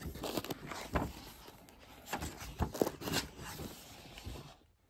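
Pages of a hardcover storybook being turned and handled: a series of brief papery rustles and flicks that fade out near the end.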